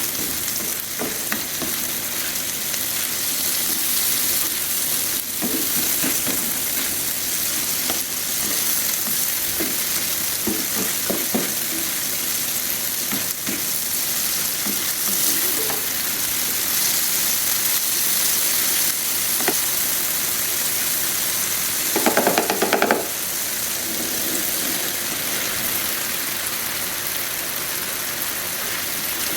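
Okra sizzling as it fries in oil on a tawa, with a spatula stirring and scraping against the pan now and then. A short burst of quick scraping comes about three-quarters of the way through.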